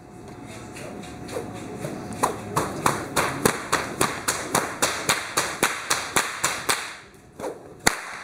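A whip being cracked over and over in a quick, even rhythm, about three cracks a second, then a single crack near the end.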